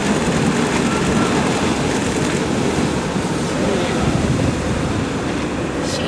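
Heavy ocean waves breaking as a steady rush of surf, with wind buffeting the microphone.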